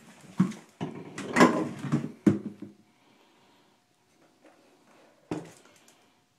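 Knocking and clattering of a wooden door or cupboard being handled, a cluster of bangs in the first two and a half seconds, then one sharp knock about five seconds in.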